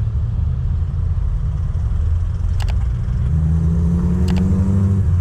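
Wind buffeting the microphone with road rumble while riding a mountain bike in traffic; past the middle a motor vehicle's engine rises in pitch, and there are two sharp clicks.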